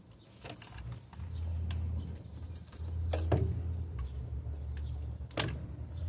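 Plastic clicks and rattles of a car's fuse and relay module and its wiring connectors being handled. There is a sharp click about three seconds in and a louder one near the end, over a low steady rumble.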